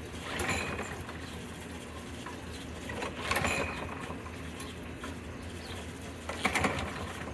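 Hand tools and metal mower parts clicking and clattering in three short bursts, with a steady low hum underneath.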